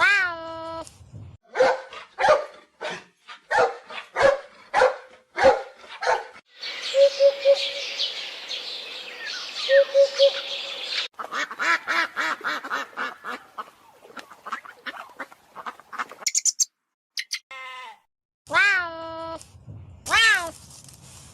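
A string of different animal calls. A cat meows at the start and twice near the end, and other animal calls and brief high chirps come in between.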